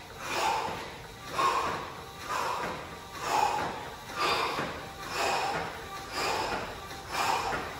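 A woman breathing hard, a forceful exhale about once a second in time with her squat reps, eight in all.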